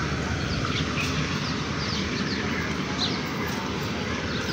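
Outdoor ambience of a station platform: birds give short chirps several times over a steady low background noise.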